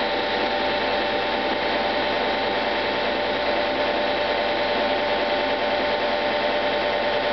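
Baldwin hydraulic testing machine's pump running steadily as it loads a flashlight in compression: an even mechanical hum with a few steady tones in it.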